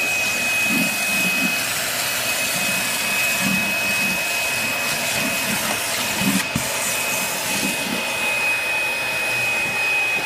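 Small bagged Shark vacuum running steadily over carpet, a high whine over its airflow noise with irregular low pulses underneath. It is pulling out fine dust and sand trapped in the carpet pile, filling its bag.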